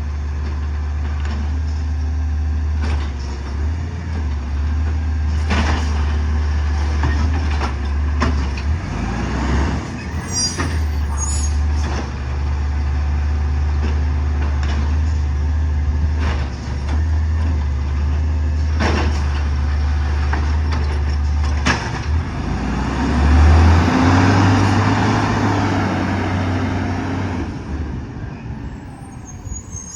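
Heavy truck's diesel engine running with a steady low rumble, broken by several sharp knocks and bangs. About three-quarters of the way through the engine revs up louder for a few seconds, then settles and fades near the end.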